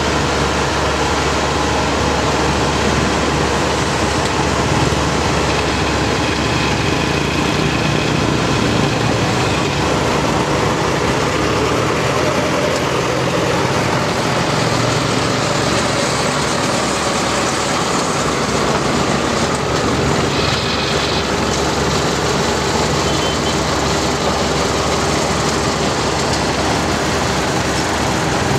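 Heavy diesel engine running steadily, its note shifting slightly about twelve seconds in.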